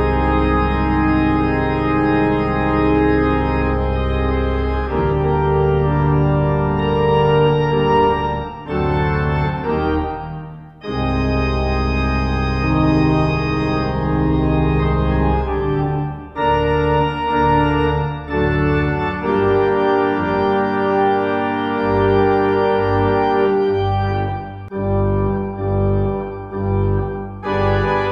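Organ playing a slow closing voluntary: held chords over a deep bass line, changing every few seconds, with brief breaths between phrases.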